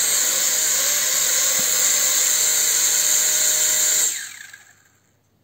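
Carrera RC Motion Copter toy quadcopter's four small motors and propellers whining steadily at a high pitch while the drone is held in the hand. About four seconds in the motors are switched off and the whine dies away within about a second.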